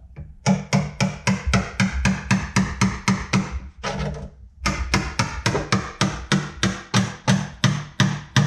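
A hammer striking a scraper blade driven under a block glued to the floor of a carbon jet ski hull, working it loose. Quick, even blows at about four to five a second, with a brief pause about halfway.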